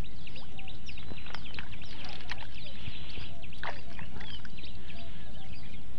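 Many small birds chirping and twittering in quick, overlapping short notes, over a steady low rumble, with a couple of brief clicks.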